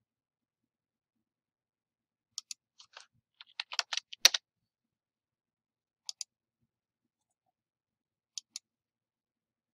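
Computer mouse clicking in quick double ticks, three times, with a short run of keyboard typing about three to four seconds in that ends on one harder keystroke.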